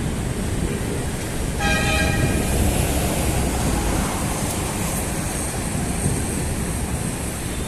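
Busy road traffic rumbling steadily, with one short vehicle horn blast about one and a half seconds in.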